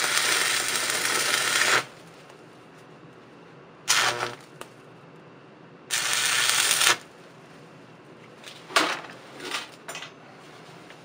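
Stick welding with a 6011 rod, tacking a piece back onto a broken-off bolt stub so it can be extracted. The arc crackles and sizzles in three runs: about two seconds, a short burst around four seconds in, and about a second more near the middle. A few sharp clicks and taps follow near the end.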